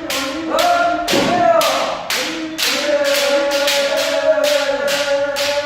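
Kendo kiai shouts, long and drawn out, over a rapid series of sharp smacks from strikes and stamping, about two to three a second.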